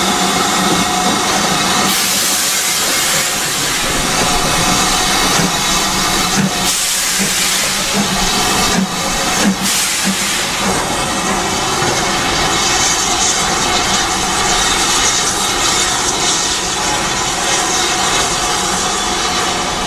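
Steam locomotives hissing: a loud, steady hiss of escaping steam, with a brief dip about nine seconds in.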